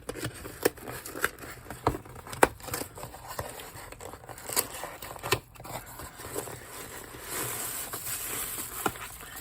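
A parcel being opened by hand: scattered clicks and knocks of cardboard and packaging being handled, then a couple of seconds of crinkling and tearing of tight wrapping about seven seconds in.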